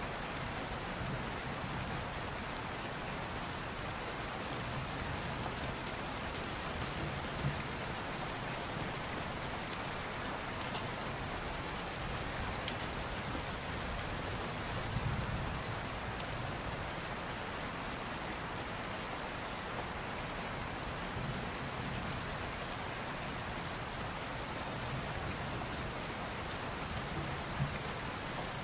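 Steady rain, an even hiss of drops, with faint low rumbles every several seconds.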